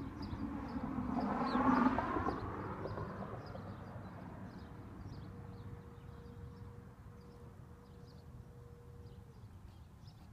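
A passing vehicle's engine swells to its loudest about two seconds in, then fades away. Faint high chirping repeats throughout.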